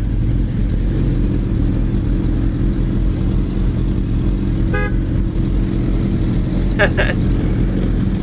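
Sport motorcycle engine running with a steady low rumble, heard from the rider's helmet camera. A short horn toot sounds about five seconds in, and two more brief sharp sounds follow a couple of seconds later.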